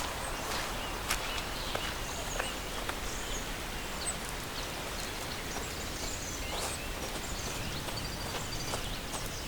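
Footsteps on a forest floor, leaves rustling underfoot at a slow walking pace, with small birds chirping and a short trill near the end.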